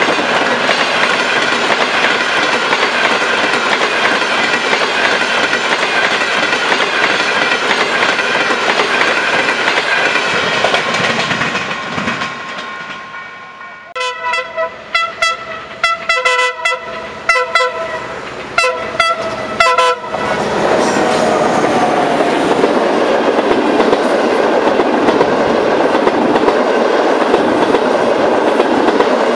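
Passenger train coaches rolling past at speed, the rumble fading out after about twelve seconds. Then an approaching locomotive sounds its chord horn in a rapid string of about ten short blasts over some six seconds, followed by another train's coaches rumbling close past with a rhythmic clickety-clack.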